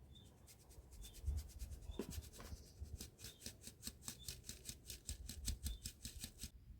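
Quick, even scraping strokes, about five a second, of a utensil worked against a mixing bowl, as when hand-whisking or beating cake ingredients.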